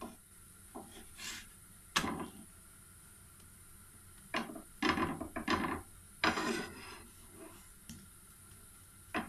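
Wooden spatula on a flatbread in a frying pan, pressing and scraping it as it cooks. There is a sharp knock about two seconds in, then several rubbing strokes a couple of seconds later.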